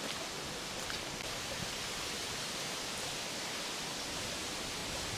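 Steady, even hiss of outdoor background noise, with a few faint ticks about a second in.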